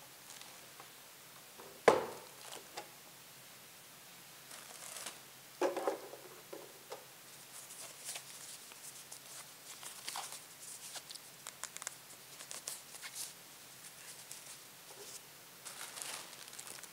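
Unboxing handling noise: a sharp knock about two seconds in and a duller thump near six seconds as accessories are set down on the projector, then plastic wrapping crinkling and rustling in short scattered bursts.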